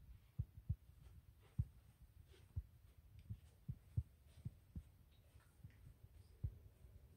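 Footsteps of someone walking, heard as faint, dull low thumps at an irregular pace of roughly two a second.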